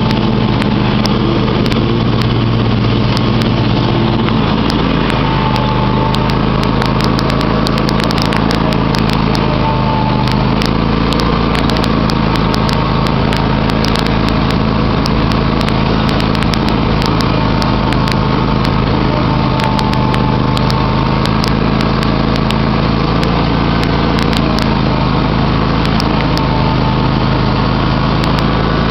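John Deere X500 Multi-Terrain lawn tractor's 25 hp engine running steadily as the tractor drives across the yard, heard from the driver's seat. Short sharp clicks and ticks sound on and off over it.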